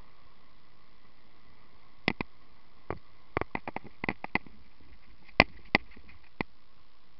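About fifteen sharp, short clicks and taps at uneven spacing, starting about two seconds in and bunched in the middle, the loudest a little past five seconds. Under them runs a steady faint hiss with a thin high whine.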